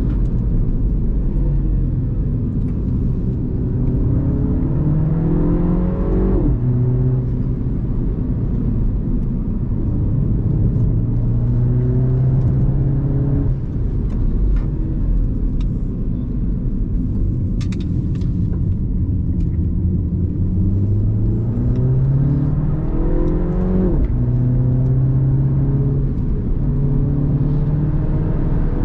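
A Mini F56's turbocharged 2.0-litre four-cylinder engine is driven hard, its pitch climbing under acceleration and then falling abruptly at upshifts about six seconds in and again near the end, under a steady road and tyre rumble.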